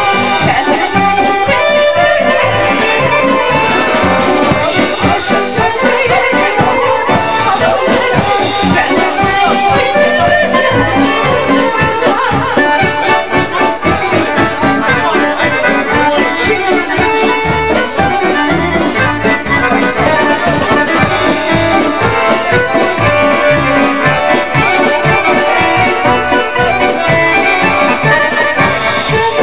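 Traditional Vlach folk dance music for a kolo, led by an accordion over a steady dance beat.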